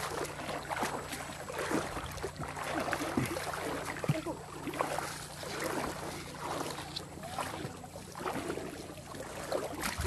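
Footsteps wading through a shallow stream: water splashing and sloshing with each step, in an uneven rhythm.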